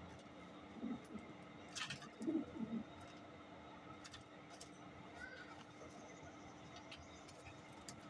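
Racing pigeons cooing faintly: low coos about a second in and again twice between two and three seconds in, with a few faint clicks.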